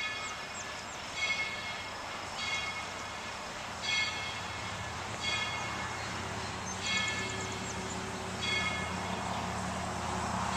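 Steam locomotive bell of Tweetsie Railroad's 2-8-2 Mikado #190 ringing steadily, one stroke about every second and a half, as the engine approaches. A low rumble from the oncoming train builds toward the end.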